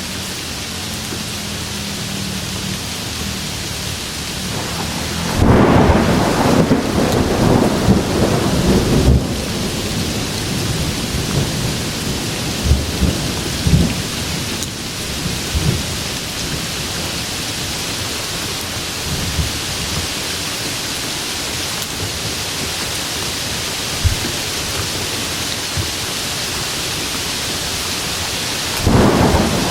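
Steady rain hiss with a thunderclap about five seconds in that rumbles and crackles on for several seconds, and a second thunderclap starting near the end.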